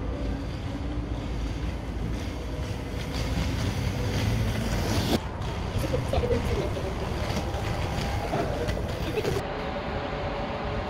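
Skate wheels rolling over stone paving: a steady rumble with scattered clicks from the tile joints.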